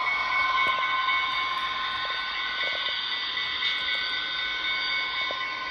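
Diesel engine sound from the DCC sound decoder of an HO scale Athearn Genesis SD70 model locomotive, played through its small onboard speaker as the model runs: a steady drone with little bass, with a few faint clicks.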